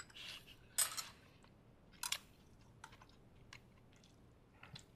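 Quiet eating sounds of a spoon and chewing: a few short, soft noises and light ticks, the two plainest about one and two seconds in.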